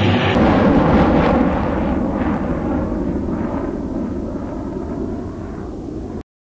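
Navy helicopter flying overhead: a heavy, rumbling rotor and engine noise that fades steadily as it moves off, then cuts off abruptly near the end.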